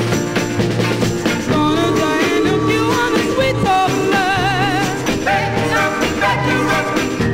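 Early-1960s rhythm and blues single played from a vinyl 45: a singer's voice with a wavering vibrato over a steady bass line and band.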